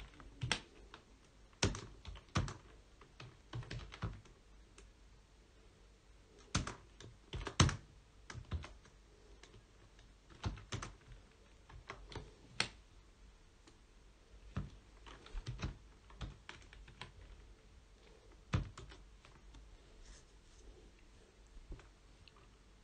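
Typing on a computer keyboard: irregular keystrokes in short runs, with pauses between them.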